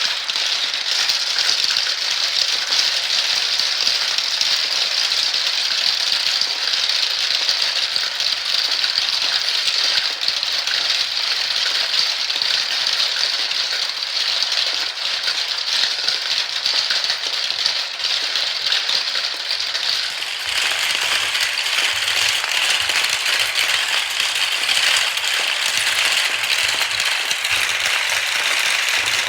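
Many balls rolling and clattering down a marble run track in a dense, continuous rattle. About two-thirds of the way through, the rattle drops lower in pitch and a few low knocks come in.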